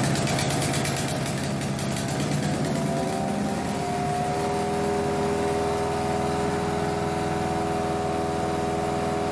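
Wood chipper's small petrol engine running steadily, its pitch rising a little and settling about three to four seconds in.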